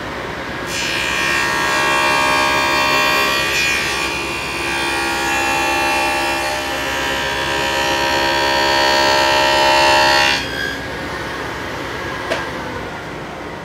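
SawStop table saw with a dado stack cutting a rabbet along the edge of a plywood bookcase side panel. It makes a loud, high whine of many held tones for about ten seconds as the board is fed through, then cuts off sharply, leaving a steady running noise and a single click near the end.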